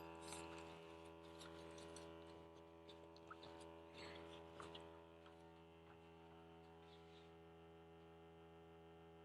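Near silence: a faint steady electrical hum, with a few light handling clicks in the first half.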